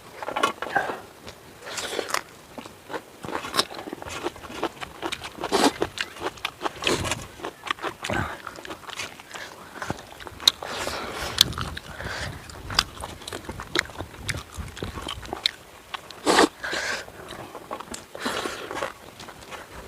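Close-up eating sounds: biting, crunching and chewing on tandoori chicken, in irregular bursts with sharp crackly clicks. The chicken was charred in cooking.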